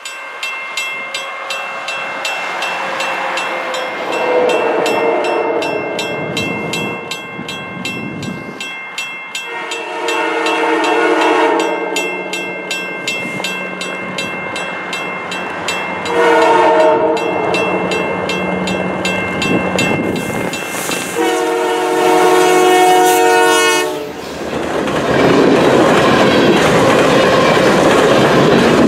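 Diesel locomotive horn blowing the grade-crossing signal as the train approaches: long, long, short, long, over a rapidly ringing bell. Near the end the locomotive and its cars pass close by, with the engine running and the wheels clicking over the rail joints.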